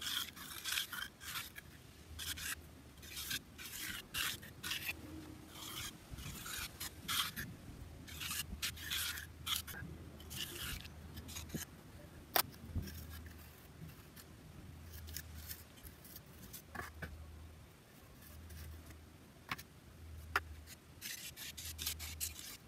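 Hand float and trowel scraping and rubbing over the top of a freshly poured concrete retaining wall during final finishing, the concrete still a little wet. The strokes come in quick runs during the first half and grow sparser later, with a few sharp taps of a tool.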